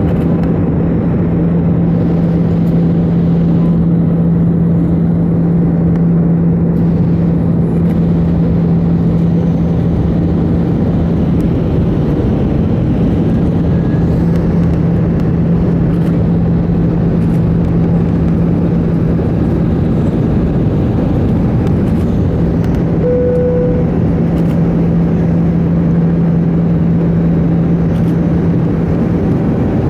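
Cabin noise inside an Airbus A319-112 on approach: steady airflow rush and the hum of its CFM56 engines, with a constant low drone that fades out just before the end. A brief single tone sounds about three quarters of the way through.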